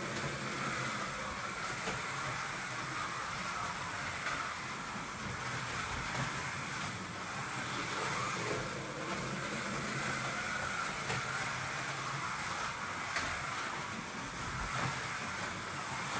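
Scalextric slot cars lapping the track: their small electric motors whirring steadily, the pitch wavering up and down as the cars speed up and slow down, with a few light clicks from the track.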